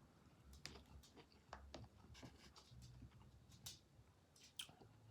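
Faint chewing, with scattered soft mouth clicks and smacks.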